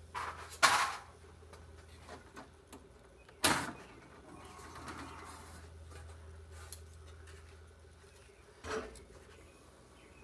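Handling noise from removing a circuit board from a server chassis: a few sharp knocks and clicks, the loudest about three and a half seconds in, with a soft rustle between them, over a low steady hum.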